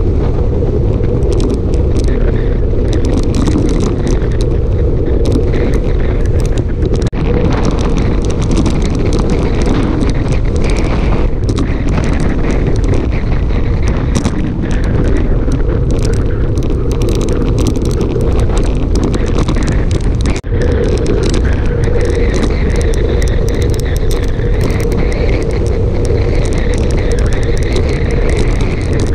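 Wind buffeting hard on a bike-mounted camera's microphone during a fast road-bike descent, a loud, steady, deep rumble with the bicycle's tyre noise underneath.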